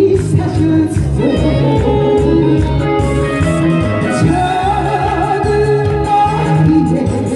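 A singer performs a Korean song medley over a backing track with a steady beat, the voice wavering with vibrato on a held note midway.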